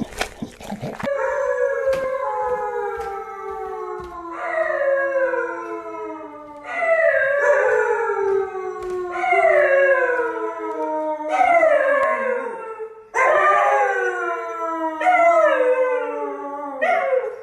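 A dog howling, starting about a second in: a run of about eight long howls, one after another, each sliding down in pitch.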